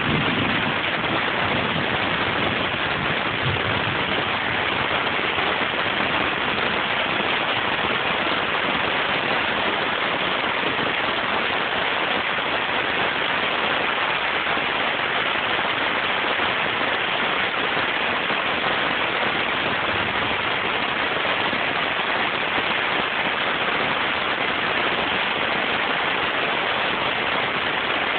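Heavy rain falling in a steady, even downpour.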